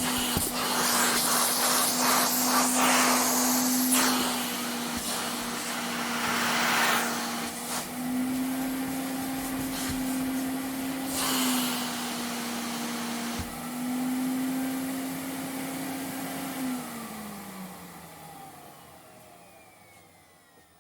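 Vacuum cleaner running, its motor hum shifting slightly in pitch as the suction changes, with surges of rushing air. About three-quarters of the way through it is switched off, and the motor winds down with a falling pitch, fading to near silence.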